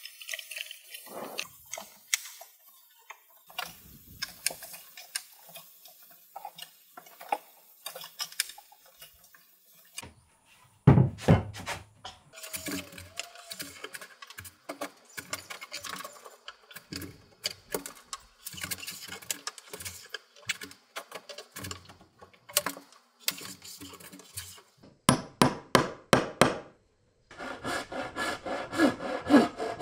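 Hand woodworking on curved wooden boards: scattered light scrapes and taps of marking and handling the wood, then louder, repeated back-and-forth strokes of a hand frame saw cutting through wood near the end.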